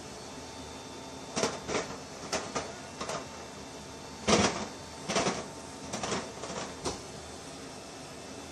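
C-17 Globemaster's rear cargo ramp and doors closing: a run of about ten sharp clunks and knocks, starting about a second and a half in, the loudest near the middle, against a steady hiss.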